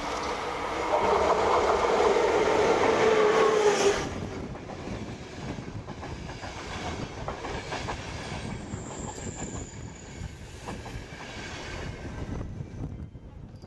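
A ČD class 350 electric locomotive passes close by with a loud whine that sags in pitch and drops away suddenly about four seconds in. Its passenger coaches then roll past, their wheels clacking irregularly over the points and rail joints, and the sound fades toward the end.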